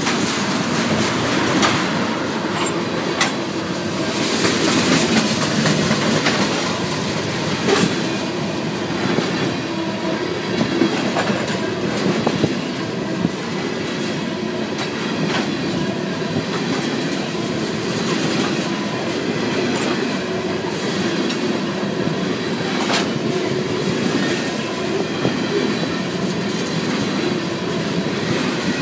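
A freight train of tank cars rolls steadily past close by: a continuous rumble and roar of steel wheels on rail, broken by sharp clacks every few seconds as the wheels cross rail joints.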